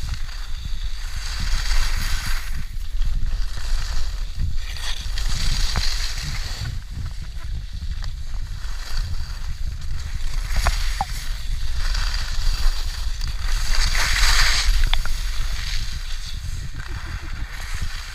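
Edges scraping and carving across packed, groomed snow during a downhill run: a hiss that swells with each turn every two to four seconds, over a constant low rumble of wind on the microphone.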